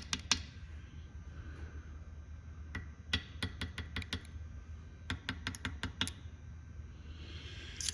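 Light, sharp clicks and taps of a tool against metal as the oil passages of an overdrive unit are probed, coming in quick clusters: a few at the start, more about three seconds in, a run around five to six seconds in, and again near the end.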